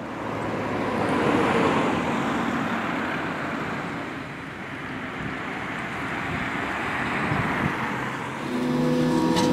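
City road traffic: the steady noise of vehicles passing, swelling and fading as they go by. A steady low hum joins near the end.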